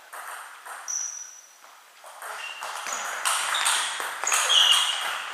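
Table tennis rally: the ball clicks sharply off bats and table, the strokes coming faster and louder from about two seconds in, with several short high squeaks between them.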